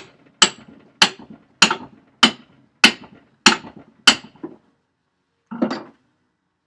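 A hammer striking metal on an old hand-forged blacksmith's leg vise being taken apart: eight sharp blows, evenly spaced at a little under two a second, each with a brief ring, then a softer, duller knock near the end.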